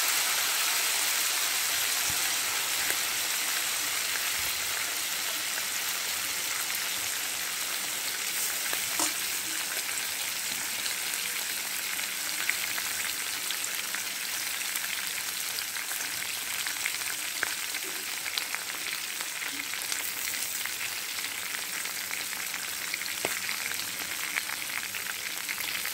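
Chicken pieces sizzling in hot oil in a wide metal karahi: a steady frying hiss with scattered small pops and spits.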